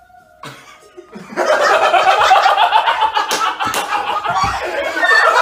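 A faint held tone stops about half a second in. From just after a second, loud, continuous laughter and shrieking follows, with a couple of sharp smacks in the middle.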